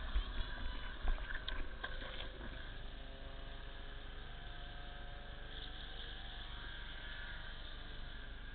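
A few knocks and clatters on the fire-hose splitter carrying the camera in the first couple of seconds, then a steady rushing noise: water being pumped through the splitter and the attack hoses toward the nozzles.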